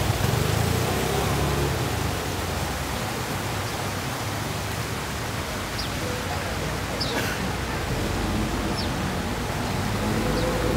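Steady rushing of running water from the stream, with faint voices in the background and a few short high chirps in the second half.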